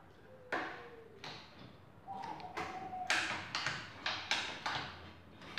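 Yamaha automatic scooter being kick-started, the engine turning over on repeated kicks of the kick-start lever without catching: a run of sudden clunking strokes that come faster in the second half. The kick meets no resistance, which the owner takes as lost compression after the engine has stood unused a long time.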